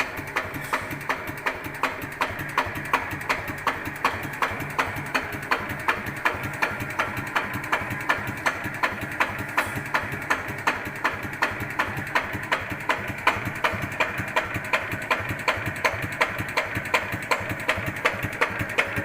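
Yanmar TF 105 L single-cylinder diesel engine idling very slowly without stalling, with an even knocking beat of about three to four sharp 'tok' knocks a second. The owner is unsure whether this knock means the engine is still healthy.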